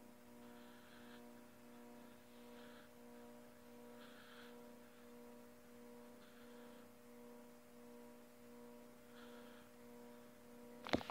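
Faint, steady electrical hum of several tones from an overloaded power transformer, oscillating: it pulses gently in level, with a higher buzz swelling in and out every couple of seconds. The noise has gone on for two days alongside brownouts, a sign of a struggling transformer. A sharp handling knock comes near the end.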